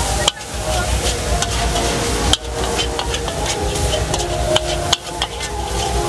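A metal spatula scraping and clanking repeatedly against a steel wok as noodles, bean sprouts and prawns are stir-fried, over a steady sizzle of frying.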